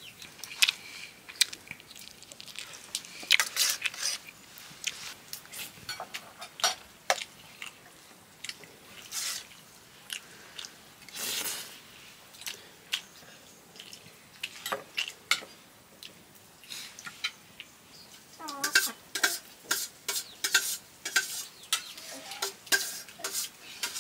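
Spoons clinking and scraping on steel plates during a meal: a stream of short, irregular clicks and scrapes.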